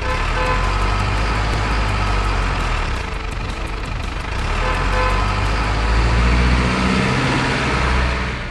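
A truck engine running steadily, swelling a little louder late on.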